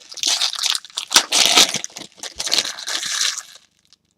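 Plastic trading card packaging being crumpled and crushed by hand, a dense crinkling crackle that stops about three and a half seconds in.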